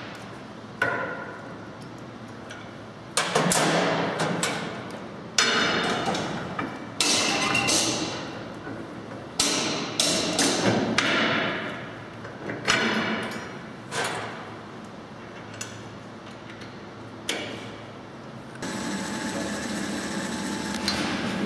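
Sharp metallic knocks on steel machine parts during assembly of a rock picker, about ten of them spread irregularly, each ringing out briefly. Near the end a power impact wrench runs steadily, driving a wheel's nuts.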